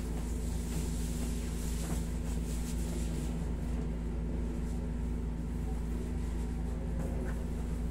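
Steady low hum of a window-type air conditioner running, an unchanging drone with a couple of fixed low tones.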